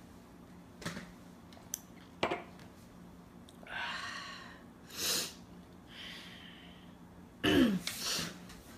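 A woman reacting to downing a shot: a few small clicks, then sharp hissing breaths and a short cough-like burst. Near the end comes a loud groan that falls in pitch.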